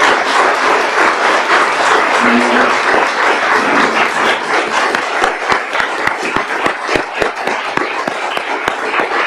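Applause from a small assembly: a dense patter of hand claps that thins out over the last few seconds into more separate claps.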